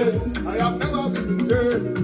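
Gospel worship music with a sung melody line, bass and steady percussion.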